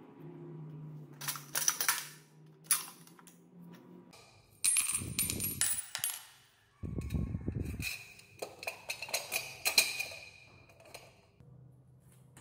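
Small steel brackets and metal parts clinking and clattering as they are handled and set down on a tile floor, with several sharp knocks that ring briefly.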